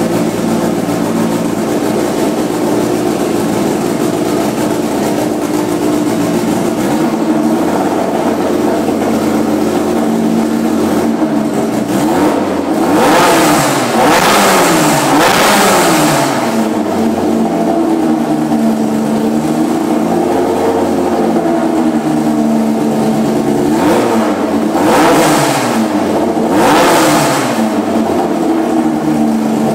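Class 10 off-road race car's engine running at a steady idle. It is revved in two clusters of quick throttle blips, one about halfway through and one near the end, with the pitch rising and falling back each time.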